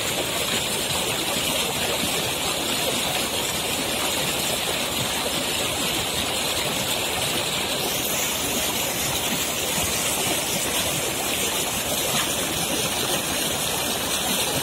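Water gushing steadily from a concrete outlet into a shallow channel, churning into white foam.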